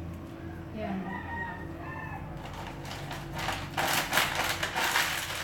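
A rooster crowing once in the background, a drawn-out call that rises and falls. It is followed by about three seconds of loud rustling and clattering as things are handled on the counter.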